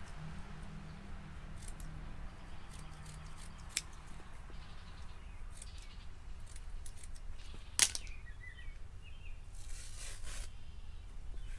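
Scissors snipping through a blue filter pad: scattered small cuts and rustling, with a single sharp click about eight seconds in and a brief rustle of the pad near the end.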